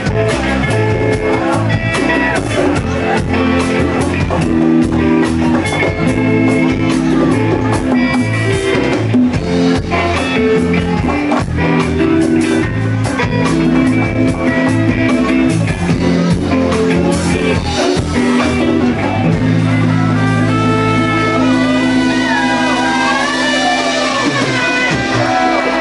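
Live rock band playing an instrumental passage: electric guitars over bass and drums. About eighteen seconds in the drum hits fall away, the band holds long notes and a guitar line bends and wavers above them.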